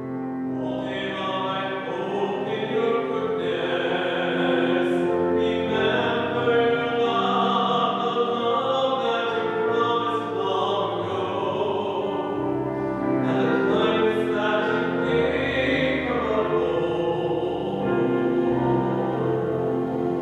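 Responsorial psalm sung at Mass: slow church singing in long, held notes.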